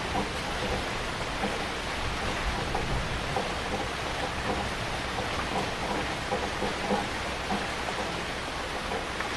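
Heavy rain falling steadily, a dense even hiss with many small drops striking close by.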